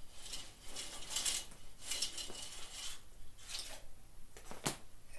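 Small metal objects clinking and clattering in irregular bursts, with one sharp knock near the end.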